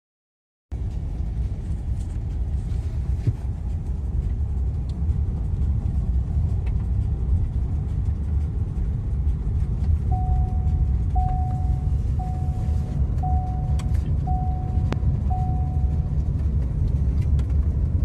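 Steady low rumble of a vehicle driving on a gravel road, heard from inside the cab, starting after a short silent gap. About ten seconds in, six short beeps sound about a second apart.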